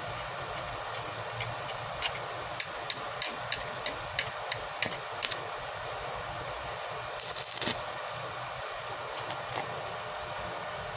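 Arc welding on steel pipe and rebar: a steady crackling hiss, with a quick run of about a dozen sharp taps, some three a second, in the first half and a brief louder hiss past the middle.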